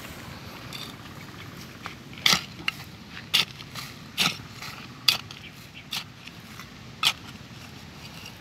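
Small hand trowel stabbing and scraping into hard, stony soil, about six sharp crunches spaced roughly a second apart.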